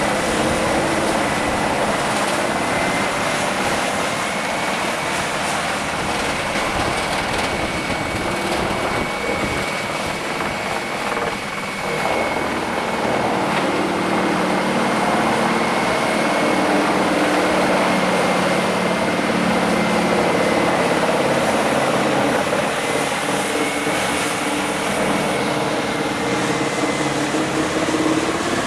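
Heavy wood chipper running steadily: a continuous engine drone with a thin high whine above it, briefly dipping near the middle.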